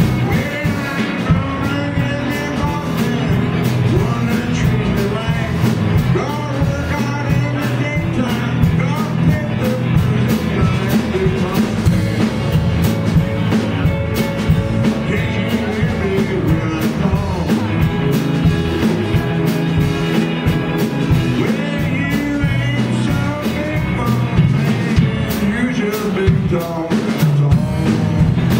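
Live blues band playing with drums and electric guitars, over which a blues harmonica is played cupped against a vocal microphone, alongside singing.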